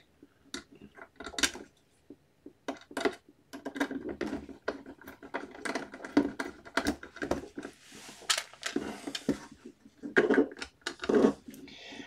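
A hand screwdriver fastening screws into the plastic back cover of an Acer Z3 all-in-one PC, with handling of the cover: irregular small clicks and taps, and a stretch of scraping and rubbing about two-thirds of the way through.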